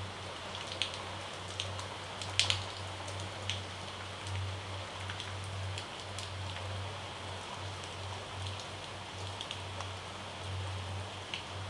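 Light clicks and taps of a spoon spreading garlic butter onto bread slices, about a dozen scattered through, the loudest pair about two and a half seconds in, over a steady crackly hiss.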